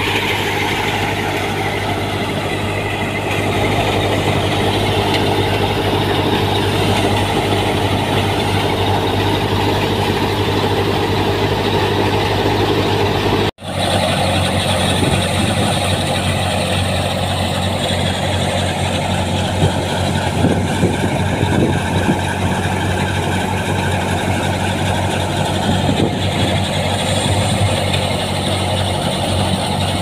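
Tractor-powered wheat thresher running steadily under load, its machinery drone mixed with the tractor engine. The sound drops out for an instant about halfway through, then the same steady running carries on.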